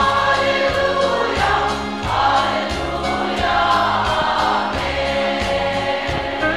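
Women's choir singing a gospel hymn in held notes, over instrumental accompaniment with a steady bass pulse.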